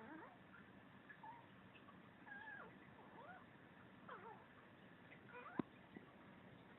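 A chihuahua making a string of faint, short high calls that bend up and down in pitch, about six of them, with a sharp click about five and a half seconds in.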